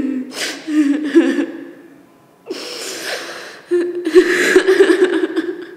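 A woman laughing behind her hand: short stifled giggles, a breathy gasp about halfway through, then a longer run of pulsing laughter near the end.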